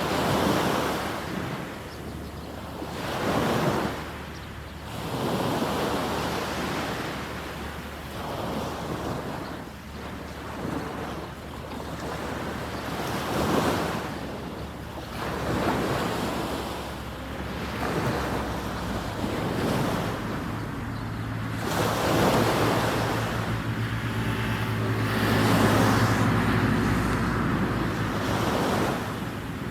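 Sea waves breaking and washing up a sandy beach in repeated surges a few seconds apart, with wind on the microphone. A faint low steady hum joins in about two-thirds of the way through.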